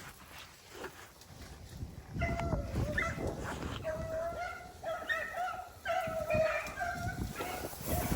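Rabbit hounds baying in a run of drawn-out calls starting about two seconds in, the voice of a pack running a rabbit.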